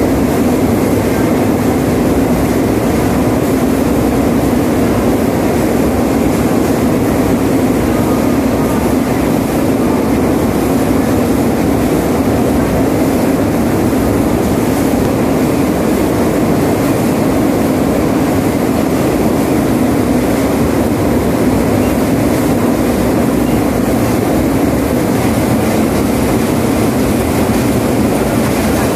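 Steady, loud rumbling noise with no distinct knocks or tones.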